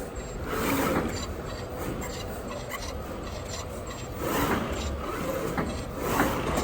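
CNC oscillating-knife cutting machine at work: steady machine noise that swells every couple of seconds as the head moves, with brief high-pitched tones.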